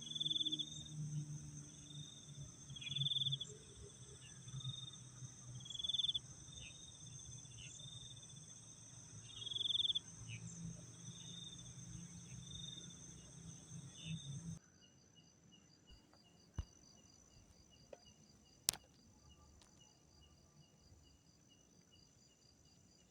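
Night insects such as crickets trilling steadily, with a louder call repeating every couple of seconds over a low hum. Partway through, the sound cuts to a quieter chorus of fast, evenly pulsing chirps, broken by two sharp clicks.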